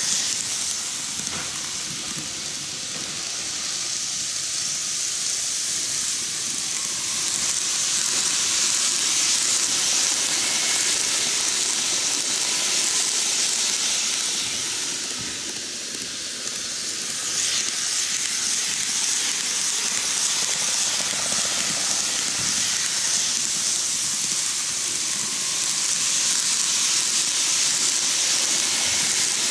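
N-gauge model trains, the Odakyu 50000 VSE and then the 30000 EXE, running on curved track: a steady high hiss of motors, gears and wheels on rail. It swells as cars pass close and sags about 3 and 16 seconds in.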